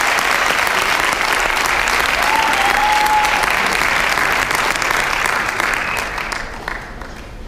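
Theatre audience applauding, thinning out and fading in the last second or two. A brief held high tone rises out of it about two seconds in.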